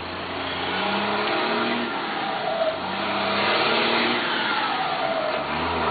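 Volkswagen Constellation truck engine pulling under acceleration, its pitch climbing, dropping at a gear change about halfway through, then climbing again toward another shift near the end.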